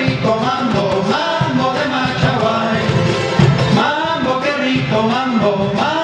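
Live Latin American folk band playing: men singing into microphones over strummed strings.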